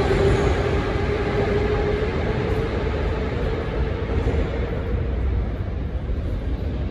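Moscow metro train rumbling alongside the platform, its motor whine creeping up in pitch as the overall sound slowly fades, like a train pulling away.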